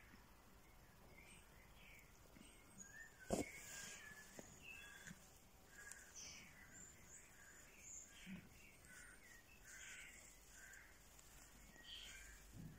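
Faint, short high-pitched animal calls repeated irregularly, with a single sharp knock about three seconds in.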